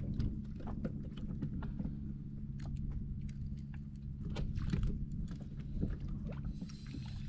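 A boat's engine running steadily at idle, a constant low hum, with scattered short clicks and knocks over it.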